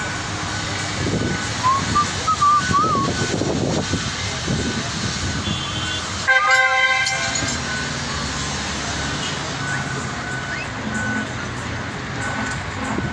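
Busy street traffic: engines and tyres of minibuses and trucks passing. A vehicle horn honks once for about a second, about six seconds in.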